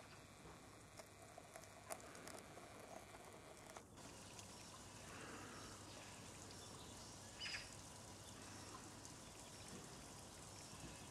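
Quiet outdoor background with a brief, faint sound about seven and a half seconds in.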